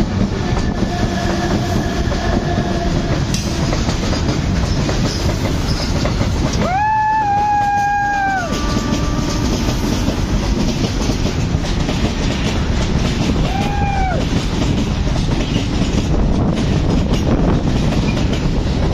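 Freight train hauled by an Alstom 12,000 hp electric locomotive running past close by, with a steady loud rush of wheels on rail. The train horn sounds one long blast about seven seconds in and a short toot around fourteen seconds.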